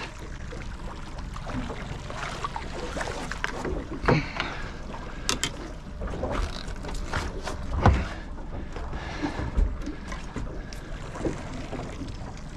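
Wind and water around a small boat, with scattered knocks and thumps as a fish is netted and swung aboard in a landing net. The loudest thump comes about eight seconds in.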